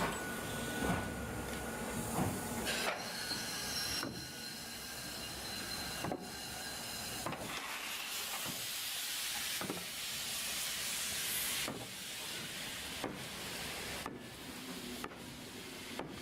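Steam locomotive 41 1144-9 hissing steam from around its cylinders while moving slowly, with sharp knocks every second or two. The hiss swells loudest about eight to eleven seconds in, and a thin high squeal sounds briefly about three to five seconds in.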